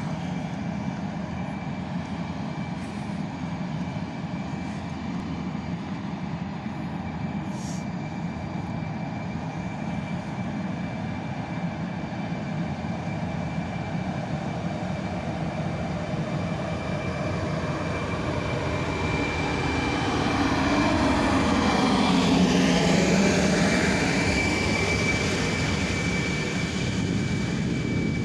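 DS3 electric multiple unit departing and running past, its traction motors whining over a steady rumble. The sound builds to its loudest about three quarters of the way through as the head car goes by, with the motor tones sweeping in pitch.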